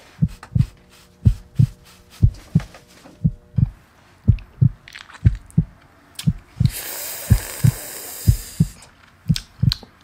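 Heartbeat sound effect: deep thumps in pairs, about one pair a second. A faint hum lies under the first few seconds, and a hiss swells in for about two seconds past the middle.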